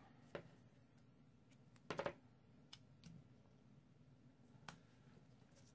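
Near silence, with a few faint taps and rustles of a roll of double-sided tear-and-tape and cardstock being handled, and one brief louder sound about two seconds in.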